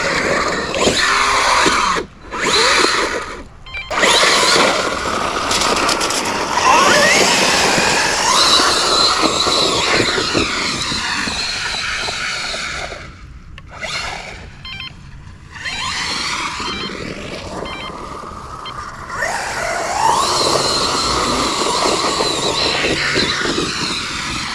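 Losi Super Rock Rey RC truck's brushless electric motor whining, its pitch rising and falling with bursts of throttle, cutting out briefly a few times, with the drivetrain grinding as the truck works up a brushy slope.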